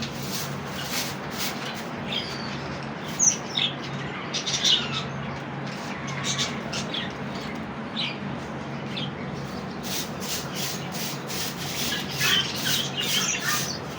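Pet parrots chirping and squawking in short, scattered high calls, mixed with quick scratchy clicks that come thickest in the last few seconds.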